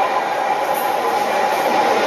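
Freight train approaching at speed, a locomotive hauling container wagons, its running noise steadily growing louder as it nears.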